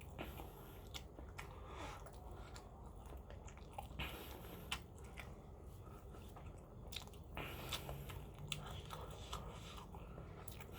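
Quiet chewing of a mouthful of spicy instant stir-fried noodles, with scattered small mouth clicks.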